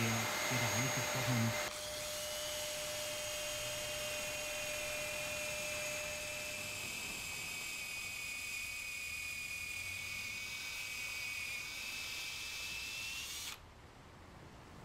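Power drill with a countersink bit cutting into a bronze rudder fitting: a rough, uneven cutting sound for the first second or two, then a steady high drill whine that cuts off suddenly near the end.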